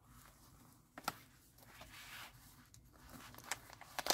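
Quiet handling of an opened zippered fabric pouch: faint rustling of the cloth lining, a sharp click about a second in, and light plastic crinkling and clicks near the end as a bubble-wrapped plastic bag is taken out.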